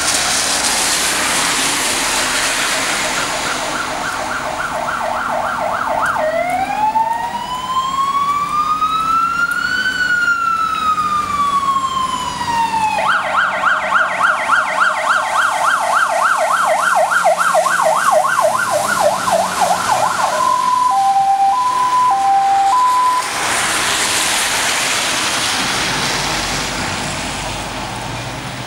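Mercedes-Benz Atego 1329 fire engine's siren running on an emergency call. It starts as a fast warble, changes to a single slow wail that rises for about four seconds and falls again, goes back to the fast warble, then switches to a two-tone high-low pattern. A hiss of wet-road noise comes before the siren starts and again after it stops, as the truck passes.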